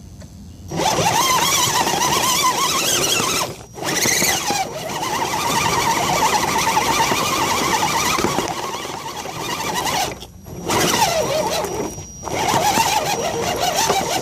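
Electric drive motor and gearbox of an Axial SCX10 RC crawler whining, the pitch wavering up and down with the throttle over a rattling, hissing drivetrain noise. It starts about a second in and cuts out briefly three times as the throttle is let off.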